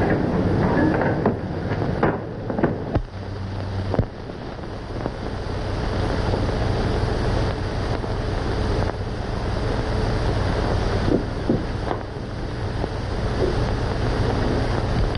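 Steady hiss and low hum of a worn 1930s optical film soundtrack, with scattered sharp clicks and knocks, most of them in the first few seconds.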